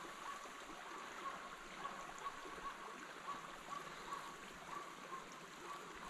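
Tree-barking bird dog barking fast and steadily, faint and far off, about two to three short barks a second, the bark of a dog holding a game bird treed.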